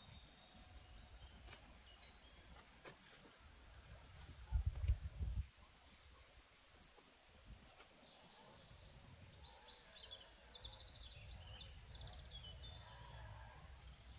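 Faint outdoor ambience: small birds chirping, including a quick trill about eleven seconds in, over a low rumble of wind. A louder low rumble comes about four and a half seconds in and lasts about a second.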